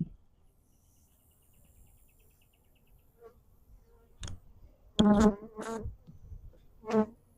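Honeybees buzzing in short, close passes by the microphone, the loudest a little after five seconds in and again near the end; the colony is stirred up by its hive being opened and a frame pulled. A sharp click about four seconds in.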